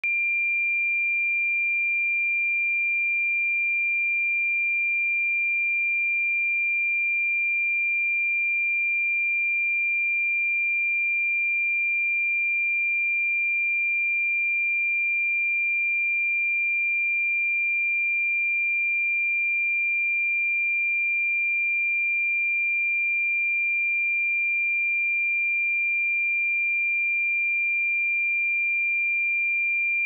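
A pure 2384 Hz sine-wave test tone: one steady, unwavering high-pitched tone for speaker and headphone testing.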